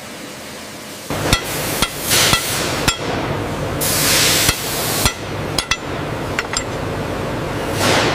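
Hammer striking metal: about eight sharp, ringing blows at uneven intervals, starting about a second in, over a steady workshop machine hum with a few longer bursts of hiss.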